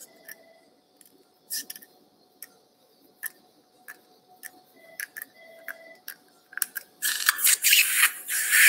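Sparse clicks and taps of metal surgical instruments, a few each second, then about seven seconds in a louder spell of scraping and rustling with many quick clicks.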